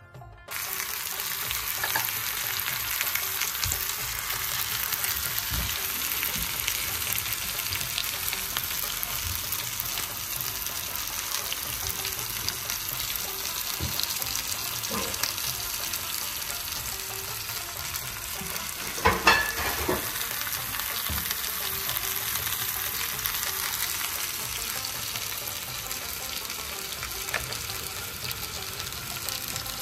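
Meat sizzling steadily in a hot pan, with a brief louder clatter about two-thirds of the way through.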